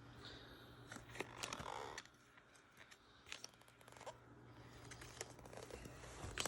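Trading cards being flipped through by hand: faint, irregular clicks and snaps of card stock sliding off a stack.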